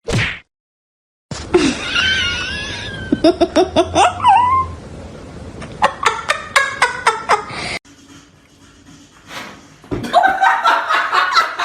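People laughing in short bursts across a run of quick-cut clips, with a moment of dead silence at a cut about half a second in.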